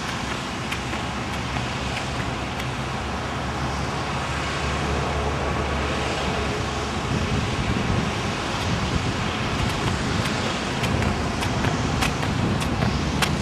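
Footfalls of two athletes doing high-knee A-skips on a rubber running track: sharp taps that come more often near the end, over a steady low outdoor rumble.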